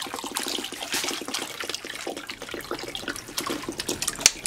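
Cleaning vinegar pouring from an upturned plastic bottle into a plastic tub of liquid, splashing over submerged rusty parts. A single sharp tap stands out just before the end.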